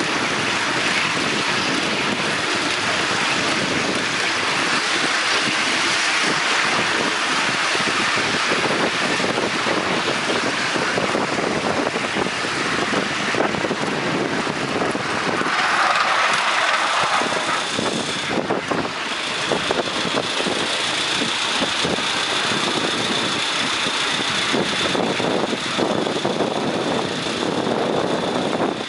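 Miniature live-steam locomotive hauling a riding train along the track: a steady clatter of wheels on rails mixed with the engine's running and wind on the microphone. A steady high tone joins about two-thirds of the way through.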